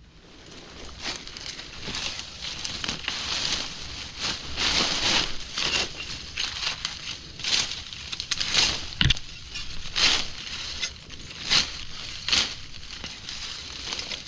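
Dry leaf litter and twigs rustling and crunching in irregular bursts, some louder than others, as they are trodden and pushed aside on the forest floor.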